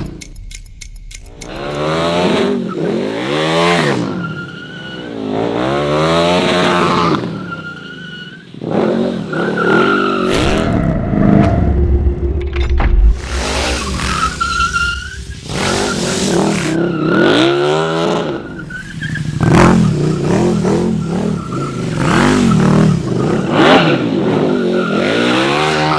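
KTM 1290 Super Duke R V-twin motorcycle engine revving hard up and down again and again as the bike drifts, with tyres squealing and skidding on the ground.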